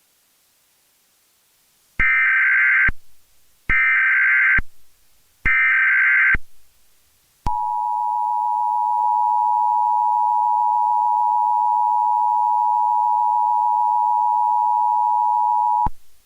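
Emergency Alert System tones: three short bursts of SAME header data about a second apart, then the two-tone EAS attention signal held steady for about eight seconds before it cuts off.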